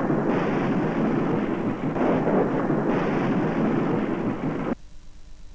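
Soundtrack of a TV break bumper: a loud, even rushing rumble that cuts off suddenly about three-quarters of the way through, leaving a faint steady hum.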